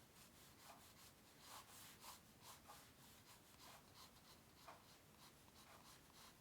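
Pencil drawing on paper: faint, short scratching strokes in an irregular run, a few a second, with a couple of louder strokes about two seconds in.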